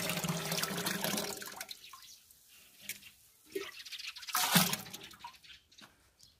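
Liquid pouring from a plastic bottle into a bucket of water, splashing and gurgling. The pour is heaviest in the first second and a half and tails off, with another brief gush about four and a half seconds in.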